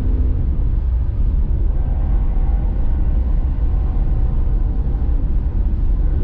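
Deep, steady rumble of an approaching BNSF diesel freight train.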